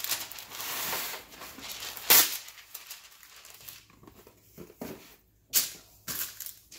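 Wax paper pulled off its roll and torn across the box's cutting edge, with a sharp tear about two seconds in, then crinkling and rustling as the sheet is laid and smoothed onto a metal baking sheet.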